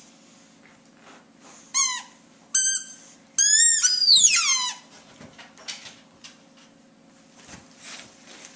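A squeaky dog toy squeezed three times in quick succession: two short high squeaks, then a longer one that rises and slides down in pitch.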